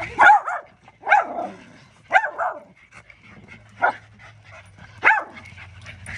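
Dogs barking: five short, separate barks spaced roughly a second apart.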